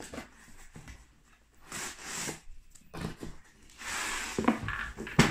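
Cardboard packaging being handled, with the inner box sliding and rubbing out of its outer box in swishing scrapes. A sharp knock comes just before the end.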